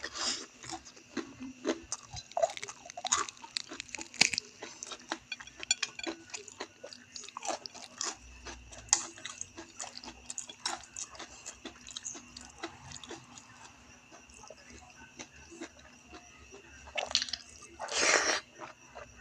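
Close-up chewing and biting of crispy fried chicken: a dense run of small crunches, clicks and wet mouth sounds. Two louder breathy sounds come about 17 and 18 seconds in.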